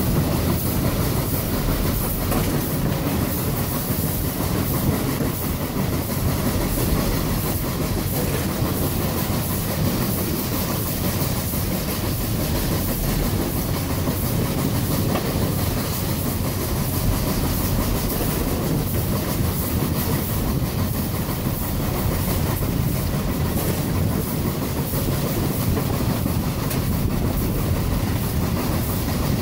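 Durango & Silverton K-28 narrow-gauge steam locomotive No. 473 under way, its exhaust chuffing steadily from the stack over the rumble and clatter of its running gear and wheels on the rail, heard from the cab.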